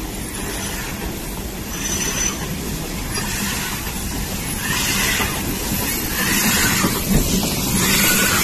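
Train of carriages rolling past on the rails, pushed by a coal-fired X class steam locomotive. The running noise swells in waves and grows louder in the second half as the locomotive, venting steam, comes alongside.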